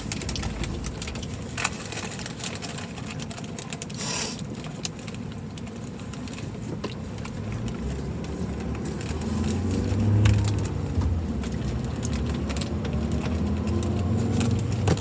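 Steady low rumble inside a car cabin, with scattered small clicks and a brief rustle about four seconds in. The low sound swells for a moment around ten seconds.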